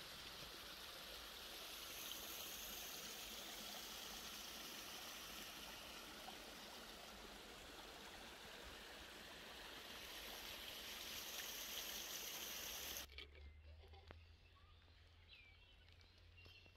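Small garden stream trickling and splashing over rocks, a steady rushing sound. About thirteen seconds in it cuts to a much quieter scene with a low hum and a few faint bird chirps.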